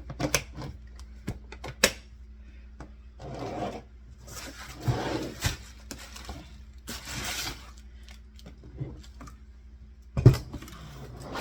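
Hands rummaging through a container of craft supplies: scattered clicks and rustling, with one louder knock about ten seconds in.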